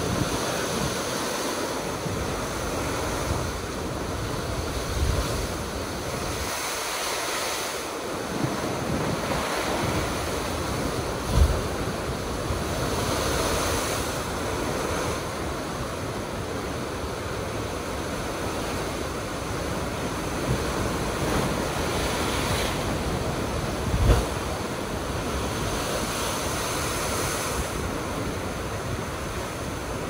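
Heavy ocean surf crashing and surging against a rocky shoreline, a continuous rolling wash of water and spray. Heavier crashes stand out about eleven seconds in and again about twenty-four seconds in.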